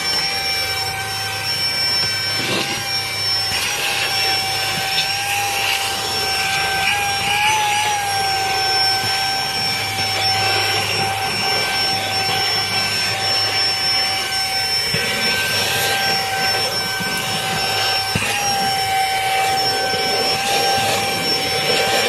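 Saker 3-in-1 cordless mini vacuum cleaner running: a steady high whine over rushing air, its pitch wavering slightly now and then as the nozzle is worked over a rubber car floor mat.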